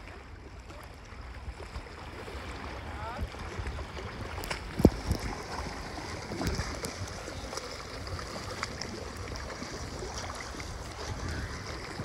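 Small sea waves washing and lapping around rocks, with a steady low rumble of wind on the microphone. A few sharp clicks and one louder knock about five seconds in.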